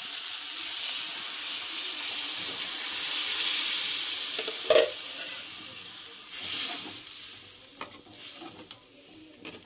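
Yogurt and gram-flour batter being poured into a hot steel kadai of fried masala and stirred in with a steel ladle, sizzling loudly, the sizzle dying away over the second half. The ladle knocks sharply against the pan about five seconds in, with lighter taps and scrapes near the end.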